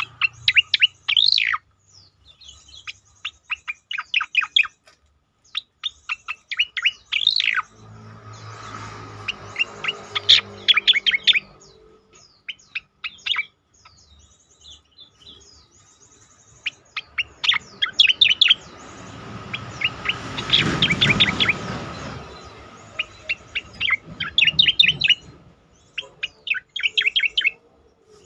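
Striated grassbird (cicak koreng) singing: repeated phrases of rapid, sharp, falling chirps, each phrase a second or two long with short pauses between.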